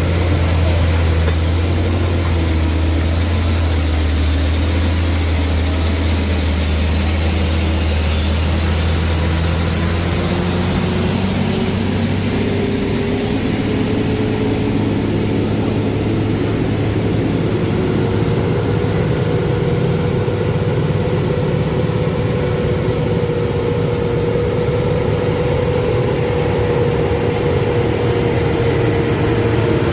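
Heavy vehicle's diesel engine running under load on a steep uphill grade: a deep, steady hum at first, then its pitch rises slowly through the middle and holds steady near the end.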